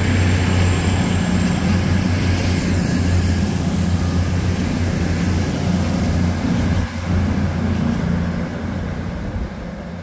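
A CrossCountry Voyager diesel multiple unit's diesel engines give a steady low drone as the train moves away along the platform, fading near the end.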